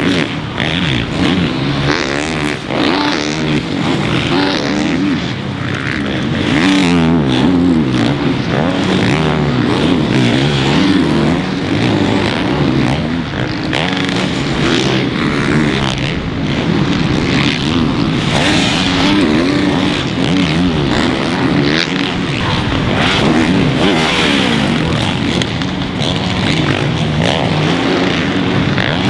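Several supercross dirt bikes running on the track at once, engines revving up and down without a break as the riders go through gears and throttle in and out.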